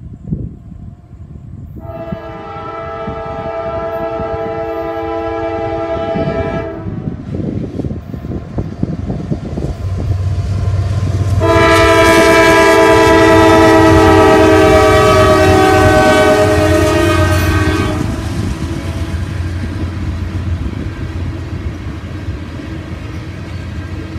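Norfolk Southern diesel freight locomotive's multi-chime air horn sounding two long blasts. The second is louder as the locomotive draws level and sags slightly in pitch at its end. Diesel engines rumble past, then tank cars roll by with wheels clacking over the rail joints.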